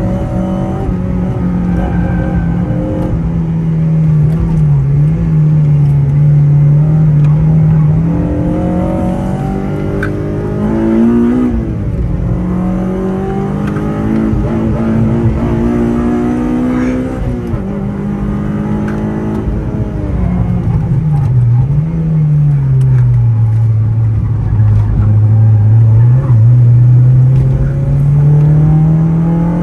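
Honda Civic Type R FD2's four-cylinder engine heard from inside the cabin on track, its note repeatedly climbing under acceleration and falling away. There are quick drops in pitch at gear changes, and longer falls as it slows for corners.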